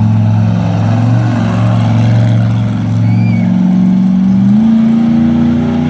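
Monster truck engine running loud under throttle as the truck drives past, its pitch climbing about four and a half seconds in as it accelerates away.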